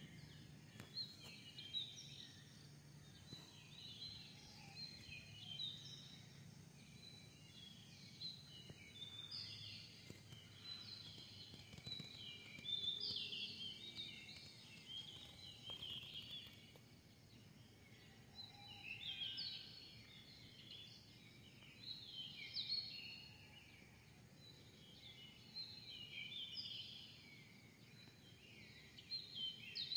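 Faint chirping and singing of many small birds, short overlapping calls coming in clusters every few seconds, over a faint low hum.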